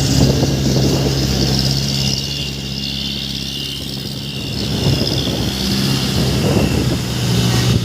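Truck engine running, a steady low hum with a rough rumble that eases off a couple of seconds in and swells up again after about five seconds.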